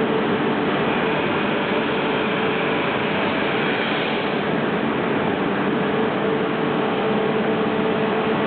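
O-M vertical lathe running steadily: a constant mechanical noise with a steady hum.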